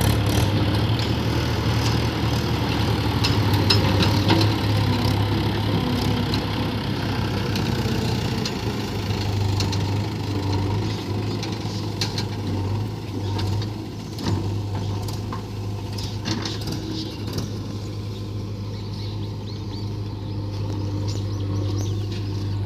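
Heavy diesel machinery running steadily, with scattered knocks and clanks over the engine sound.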